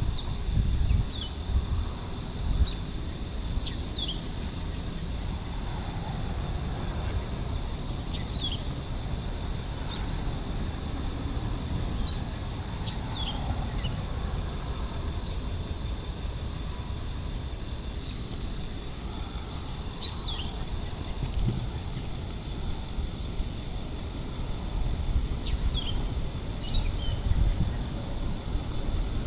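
Outdoor ambience: a low steady rumble under short falling bird chirps every few seconds, with a steady high hum and quick ticking about twice a second.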